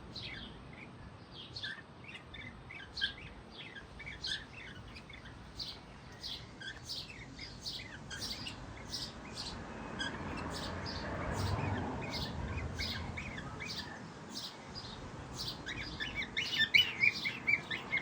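Cockatiels chirping: many short, high chirps repeated through the whole stretch, growing busier and louder near the end.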